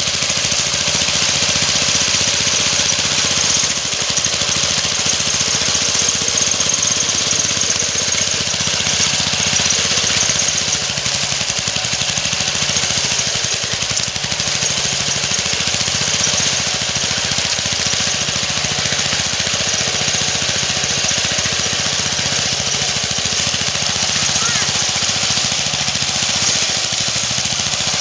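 Small petrol engine of a homemade push-type brush cutter running steadily at working speed as it cuts through thick grass.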